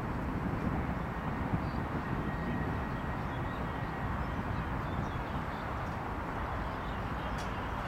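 Steady outdoor background noise with a low rumble and a few faint high chirps.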